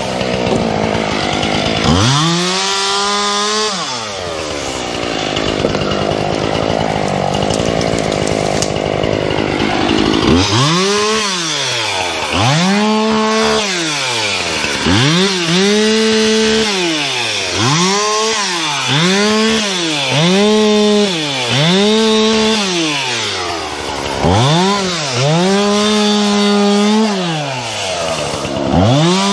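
Two-stroke chainsaw cutting wood: the engine pulls down under load for several seconds, then is revved to full throttle and let back about a dozen times in quick succession, about once a second.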